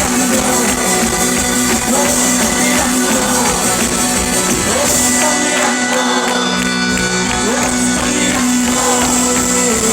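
Live band playing a song in concert, with a crowd shouting and singing along.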